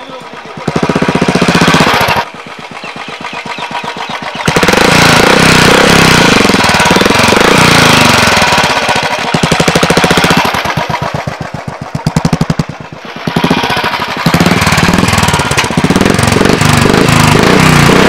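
Royal Enfield Classic single-cylinder engine breathing through an aftermarket Cobra Premium exhaust, revved up several times and held for a few seconds at a time. Between revs it drops back to a quieter, even thumping idle.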